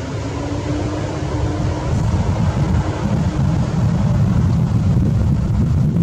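Loud steady low rumble of outdoor background noise, with a faint hum during the first half.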